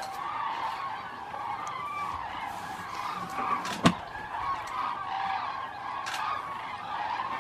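A large flock of birds calling together in a dense, continuous chorus of honking calls, with one sharp click about four seconds in.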